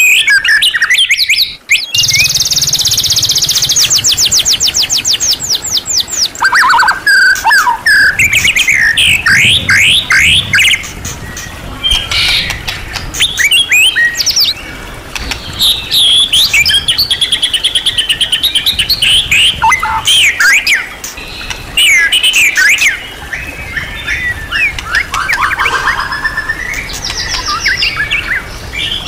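White-rumped shama singing a long, varied song with fast rattling trills, chatters and rising and falling whistles, packed with phrases imitated from other birds.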